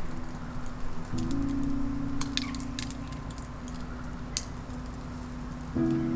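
Wood fire crackling, with sharp scattered pops, over soft background music of sustained notes that change pitch about a second in and again near the end.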